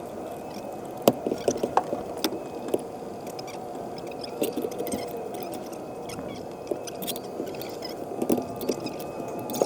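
Scattered light metallic clicks and knocks from handling a manual transmission on a transmission jack under a truck, over a steady background hum.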